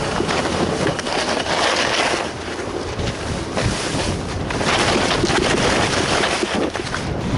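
Skis hissing and scraping over snow at speed, mixed with wind rushing over a helmet-mounted camera microphone; the rush swells and eases in turn.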